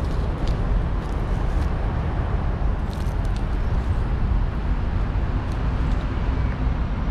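Steady low rumble of city outdoor background noise, with a few faint short high ticks scattered through it.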